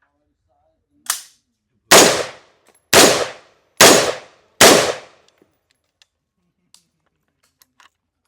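Four gunshots about a second apart from a firearm at a shooting range, each a sharp crack with a short echoing tail, preceded by a fainter crack about a second in.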